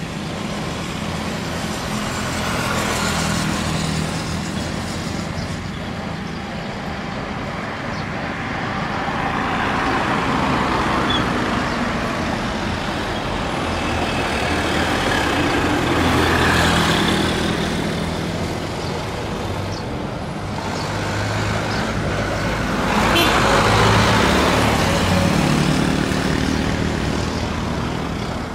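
Steady engine rumble with a rushing hiss that swells and eases about every six or seven seconds, the loudest swell about 23 seconds in.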